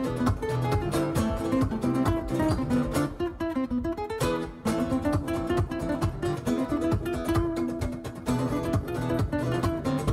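Background music: acoustic guitar, strummed and plucked in a steady rhythm.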